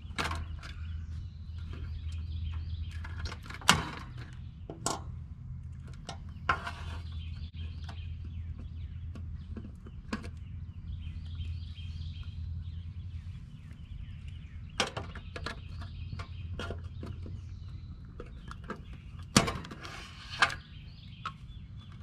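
Scattered sharp clicks and handling noises from needle-nose pliers and control wires being worked loose inside an open heat pump condensing unit's control panel, over a steady low hum that eases about halfway through. Birds chirp in the background.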